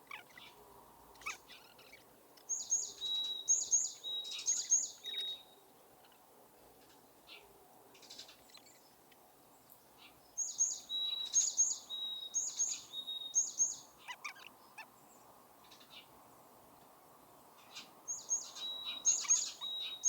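A songbird singing: three bouts of one repeated phrase, about eight seconds apart, near the start, in the middle and near the end. Each bout is a string of high chirps alternating with short, lower, steady whistled notes, about four times over.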